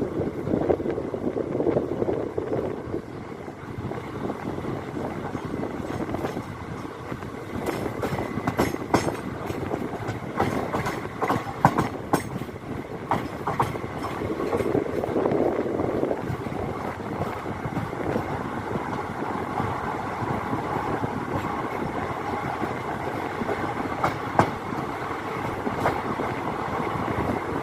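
Passenger train wheels rolling over the track, with a run of sharp clicks at the rail joints through the middle, then a steadier rolling sound.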